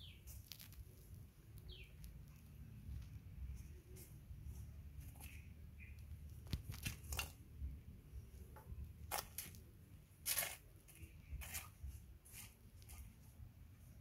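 Faint scattered scratches and clicks of a young monkey pawing at sand and a small crab on stone paving, the sharpest clicks between about six and twelve seconds in, over a low rumble. Two short high falling chirps sound in the first two seconds.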